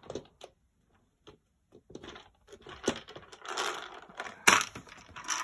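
Hands rummaging: paper rustling and small hard objects clicking, scattered and irregular, with a longer rustle past the middle and one sharp click about four and a half seconds in.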